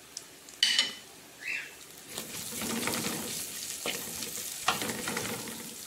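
Crumbled Tuscan sausage sizzling in oil in an aluminium pot, with garlic just added, while a plastic spatula stirs and scrapes the pot. A brief sharp clatter comes under a second in, and the sizzling grows louder about two seconds in.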